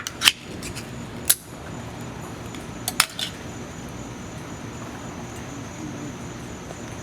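A few sharp metallic clinks and clicks of camp cookware and utensils being handled, scattered through the first three seconds, over a steady background hiss.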